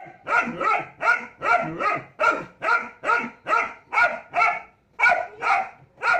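German shepherd barking at a cat: a rapid run of about fifteen loud barks, two or three a second, with a short break about four and a half seconds in.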